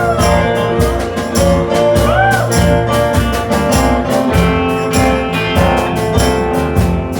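Band music with guitar and a steady beat, played between sung lines without singing.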